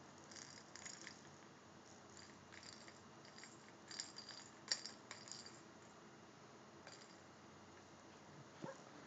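Faint clicking and rattling of a baby's plastic ring toy being handled, in short clusters, with one sharper click about halfway through.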